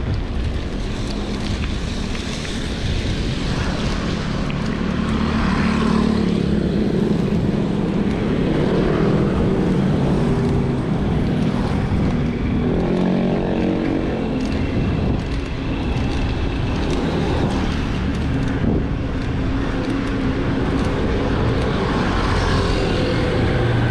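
Road traffic close by: motor vehicle engines running steadily over road noise, with one engine's pitch shifting about halfway through as it passes or changes speed.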